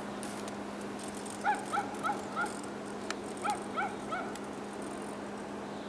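A dog yipping: two runs of short high yips that rise and fall, about four and then three, starting about a second and a half in, over a steady low hum.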